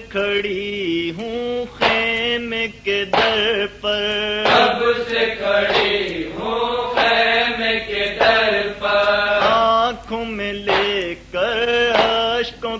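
A male voice chants a noha, a Shia lament, without instruments. It comes in long phrases that bend up and down in pitch, with short breaks between them.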